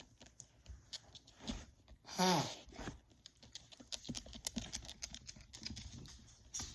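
A single human sneeze about two seconds in: a sharp burst followed by a short voiced tail falling in pitch. Faint scattered taps and clicks run around it.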